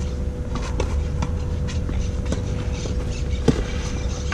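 Tennis ball struck by racket on a clay court: a few sharp pops during a baseline rally, the loudest about three and a half seconds in, over a steady low rumble.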